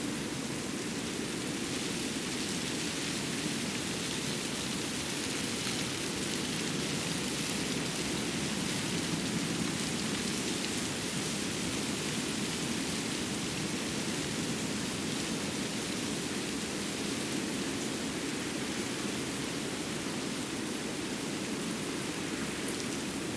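Steady, even rushing noise of a snowy winter forest's outdoor ambience, with no distinct events standing out.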